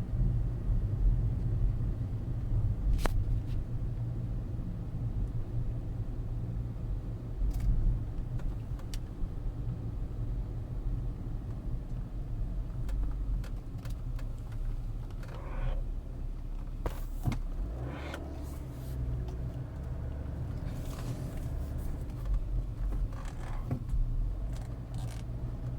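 Low, pulsating hum from the drivetrain of a BMW E61 530xd under throttle, which the owner believes comes from the gearbox because it stops as soon as he lets off the throttle. A few short clicks and knocks sound over it.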